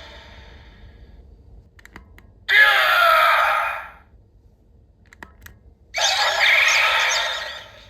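Electronic sounds from the DX Arc Cube Premium toy's speaker. Music fades out, then come a few faint button clicks and two loud bursts of sound effects, each about a second and a half long, the second with a warbling high tone.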